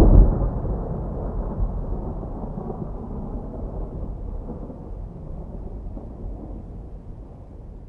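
Rolling thunder rumbling away, slowly fading out.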